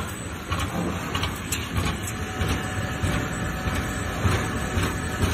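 Plug-tobacco slicing machine running: its cutter knocks regularly, about twice a second, over a low motor hum. The speed is being turned up on its inverter.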